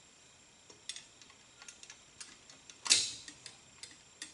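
Light metal clicks and taps as a metal bracket is handled and set against Holley carburetors, with one louder clack about three seconds in.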